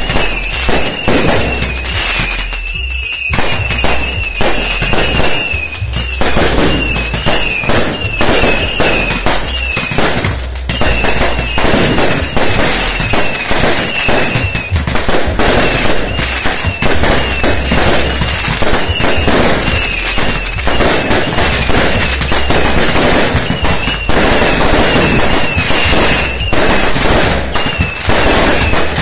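A dense, continuous barrage of firecrackers and fireworks going off: rapid bangs and crackling with no let-up. A wavering high-pitched whistle recurs through it.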